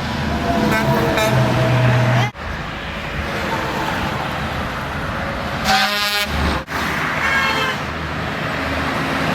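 A semi-truck air horn blows a steady held note for about two seconds and cuts off suddenly, leaving the steady rush of highway traffic.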